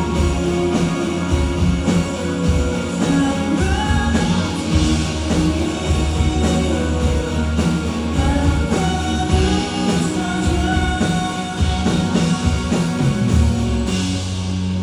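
Live rock band performance with a singer, drums and guitar, ending on a held chord near the end.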